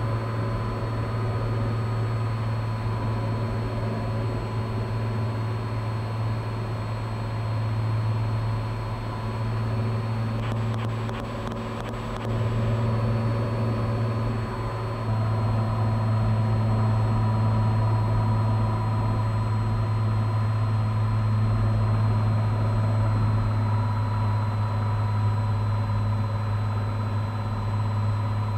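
Cessna 182's six-cylinder piston engine and propeller droning steadily on final approach, heard in the cabin; the drone grows a little louder about halfway through.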